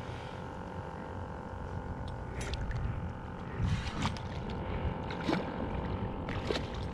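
Water lapping and slapping against a stand-up paddleboard over a low steady rumble, with about five short sharp splashes or knocks.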